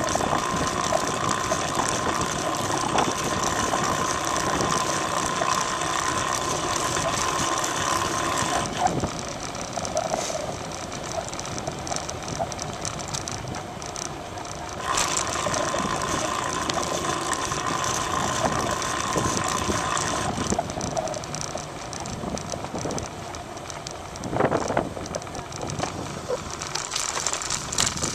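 Recumbent bicycle riding on asphalt: tyre noise with the ratcheting of the rear freewheel, plus a steady high whine during the first nine seconds and again from about 15 to 20 seconds, with quieter stretches between. A brief louder rumble comes about 24 seconds in.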